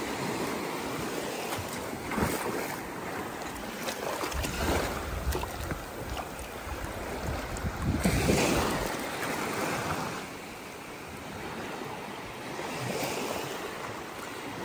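Water rushing, a steady noise that swells and fades several times.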